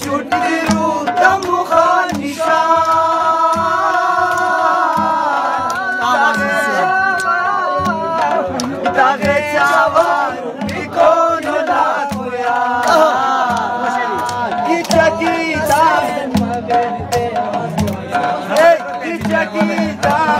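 Chitrali folk music: a surnay (reed shawm) playing a wavering melody of long held notes and slides over a steady drum beat.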